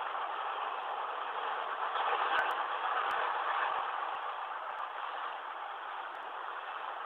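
Freight cars of a manifest train rolling past: a steady rush of steel wheels on rail, with a few faint clicks.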